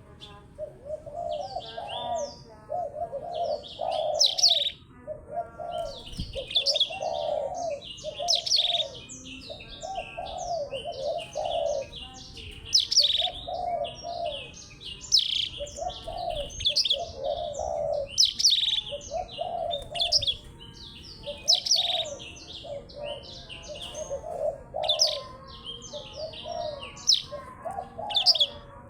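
Caged songbirds, a blackthroat and a glatik belong, singing against each other: fast, high twittering and chirps, over a lower phrase repeated roughly once a second.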